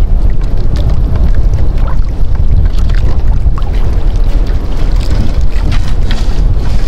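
Wind rumbling hard on the microphone over water sloshing around a small outrigger boat, with splashes and drips as a wet gillnet is hauled in over the side.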